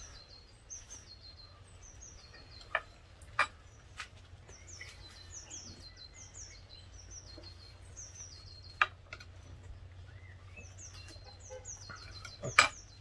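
A songbird singing short phrases of high chirps that step down in pitch, repeated every few seconds. A few sharp clicks or knocks cut in: three in the first four seconds, one about nine seconds in, and the loudest near the end.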